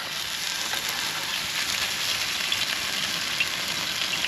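Korean short ribs sizzling on a hot grill: a steady frying hiss with small fat pops scattered through it.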